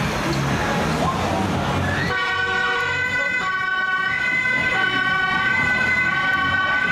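Emergency vehicle siren sounding with several steady high tones that set in suddenly about two seconds in, after a stretch of street and crowd noise.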